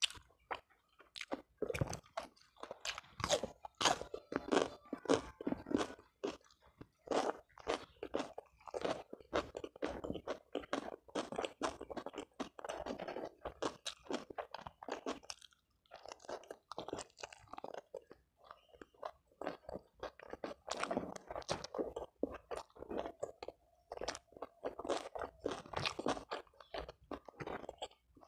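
A person chewing and crunching food, a dense run of wet clicks and crackles with a short pause about halfway through.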